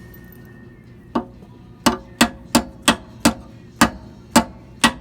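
Repeated light taps with a plastic tool, driving a new hinge-pin bushing into a 1974 Chevy C10 pickup's door hinge: about nine sharp taps beginning about a second in, coming two or three a second.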